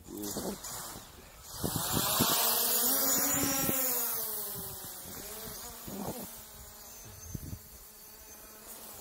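Quadcopter drone's propellers buzzing as it flies up and away. The whine grows loud about a second and a half in, rises then falls in pitch, and fades.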